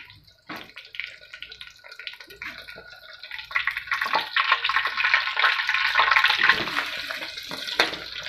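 Cabbage, carrot and egg patty frying in hot oil in a wok, a crackling sizzle with a few knocks of the spatula. The sizzle grows much louder about three and a half seconds in, as the patty is flipped and its raw side meets the oil.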